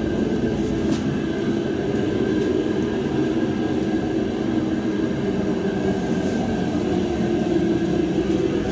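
A steady mechanical drone with a low rumble and a faint high hum, unchanging throughout.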